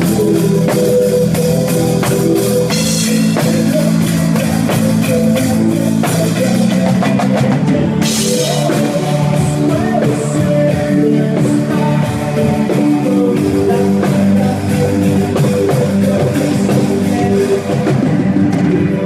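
Rock band playing at a sound check: drum kit and electric guitars going together in a steady groove.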